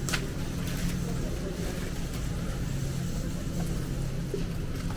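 Steady engine and road noise of a car heard from inside the cabin while driving, with one sharp click just after the start.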